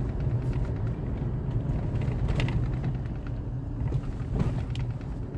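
A vehicle's engine running while on the move, a steady low rumble, with a couple of brief knocks or rattles partway through.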